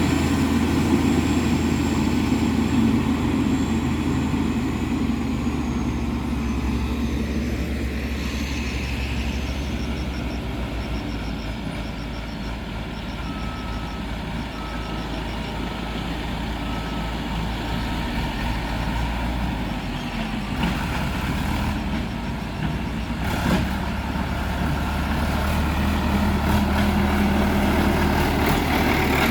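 Caterpillar 140H motor grader's diesel engine running steadily while grading. Faint, evenly spaced beeps sound for a few seconds around the middle.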